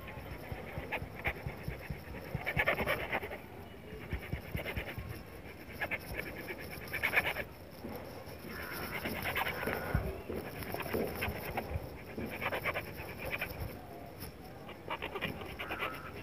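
A bare hacksaw blade, held in the hand, sawing back and forth across a 25 mm armoured power cable. The strokes come in several runs with short pauses between them.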